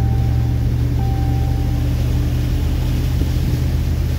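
Car driving along a wet road, heard from inside the cabin: a steady low rumble of engine and tyres.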